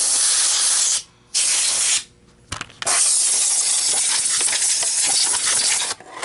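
Compressed air hissing from a blow gun in three blasts, a one-second blast, a short one, then a long one of about three seconds, blowing through a Miele canister vacuum's lid to clear out water.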